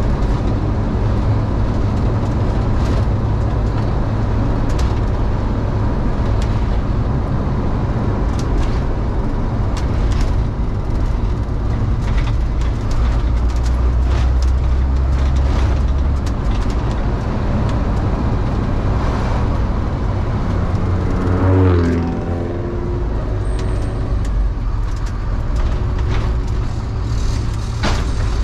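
Delivery step van driving, its engine and road noise heard from inside the cab, with scattered clicks and rattles. About three-quarters of the way through, a whine falls in pitch as the van slows.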